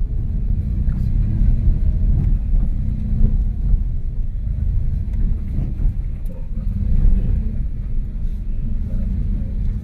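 Car engine and tyre rumble heard from inside the cabin while driving: a steady low rumble with a few small knocks.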